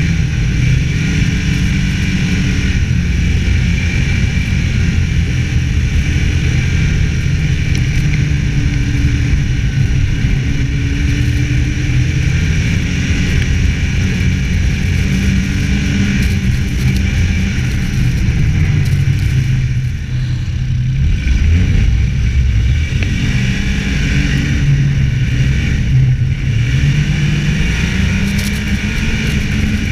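Snowmobile engine running at speed along a trail, its pitch rising and falling with the throttle, with a brief drop about two-thirds of the way through.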